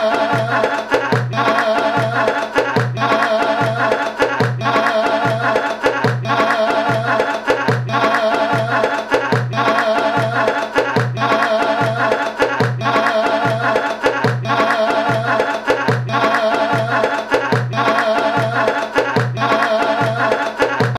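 Music: a folk-style tune with a steady drum beat, the same short ornamented phrase repeating over and over.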